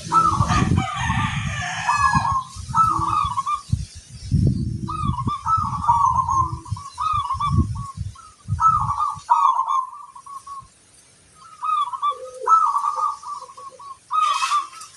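Zebra doves (perkutut) cooing, one short warbling phrase after another with more than one bird calling. Low rumbling noise runs under the first nine seconds.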